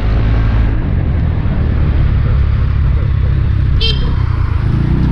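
Motorbike engine running steadily while riding, with a rush of wind noise over it. A short, high beep sounds about four seconds in.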